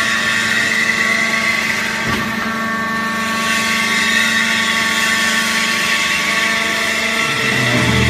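The vertical baler's hydraulic power pack, an electric motor driving a pump, runs steadily under load while the ram presses coconut fibre down. It makes a steady whine over a hum, and a deeper hum joins near the end.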